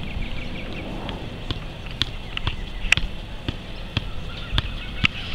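Soccer ball being juggled on the foot: a short thud each time the boot strikes the ball, at an even pace of about two kicks a second.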